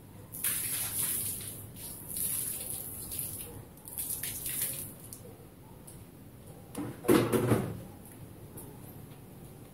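Soapy water thrown from a plastic bowl splashing across a tiled floor in several splashes during the first five seconds, then a louder knock about seven seconds in.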